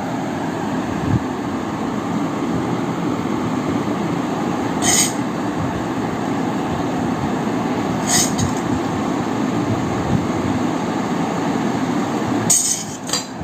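Noodles with chicken and prawn stir-frying in a wok: a steady sizzling noise, with a few sharp metal clinks of the spatula against the wok.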